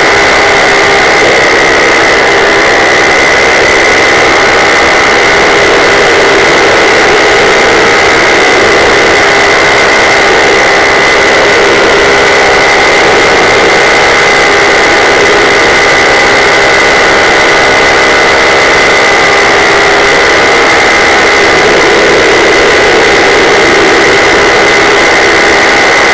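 Paramotor engine and propeller running steadily in flight: a loud, even drone with a steady high whine over it.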